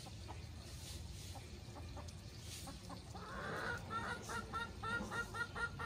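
A chicken clucking: a quick run of short notes, about five a second, starting a little past halfway through, after a few faint ticks.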